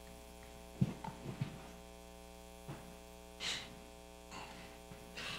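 Steady electrical mains hum in a quiet room. About a second in come a few soft knocks and thumps, and a short rustling hiss a little past the middle, from a person gathering things at a lectern and stepping away.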